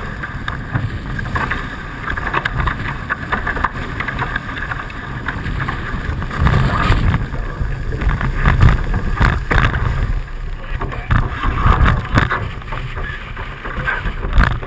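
Wind buffeting the microphone in gusts over the rush and splash of water along a Hobie 16 catamaran's hulls as it sails fast.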